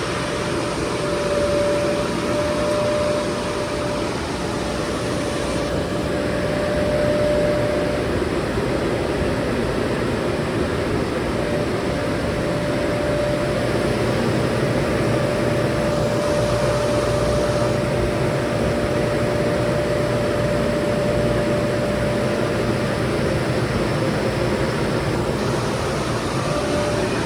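FMC M10000 aircraft ground air-conditioning unit running steadily as it warms up after starting, a constant mechanical noise with a steady hum-like tone.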